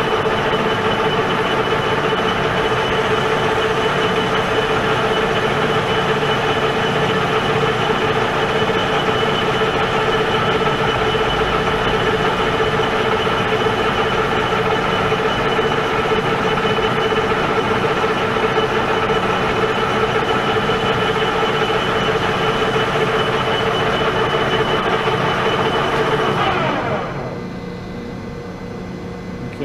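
Pratt & Whitney Model B engine lathe running under power feed, taking a spring pass (a repeat pass at the same setting) on stainless steel: a steady mechanical drone with a steady whine. About 27 s in, the sound drops sharply as the cut ends, and the lathe keeps running more quietly.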